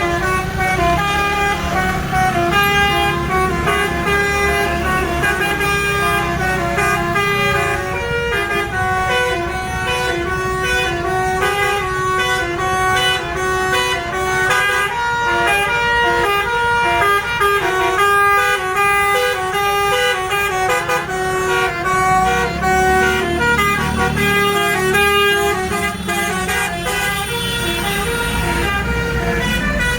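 Bus telolet horn, a Basuri multi-trumpet air horn, playing a quick tune of many short notes. A bus engine's low rumble runs under it, heavier at the start and again near the end.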